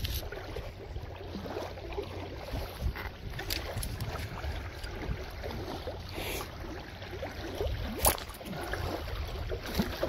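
Low wind rumble on the microphone, with a few scrapes and sharp knocks as a magnet-fishing magnet is handled in gloved hands; the sharpest knock comes about eight seconds in.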